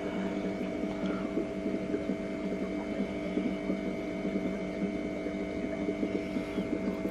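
Steady hum of an aquarium pump, with water bubbling.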